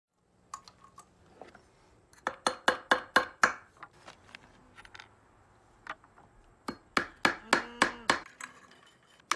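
A hammer driving nails into a wooden plank. There are two runs of rapid ringing blows, about four a second, with a few lighter single knocks between.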